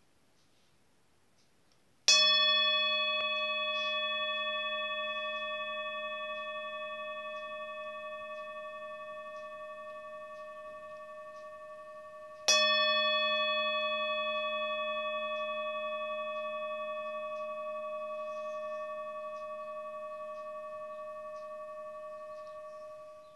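Hand-held metal singing bowl struck twice with a wooden mallet, about ten seconds apart. Each strike rings on in several steady tones that fade slowly.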